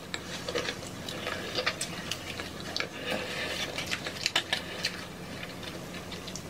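Close-miked chewing and crunching of hard-shell tacos: irregular crisp crackles and wet mouth sounds, mukbang-style.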